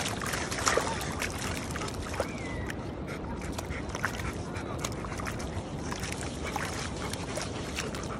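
Dog digging in wet beach sand with its front paws: quick, irregular scratching and scraping of sand over a steady background rush, with a brief high call about two seconds in.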